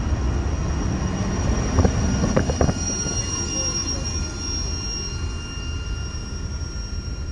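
Freight train flatcars rolling past and away, a steady low rumble of steel wheels on rail. A few sharp clacks come over the rail joints about two seconds in, and a thin, steady high wheel squeal runs through. The rumble eases slowly as the end of the train recedes.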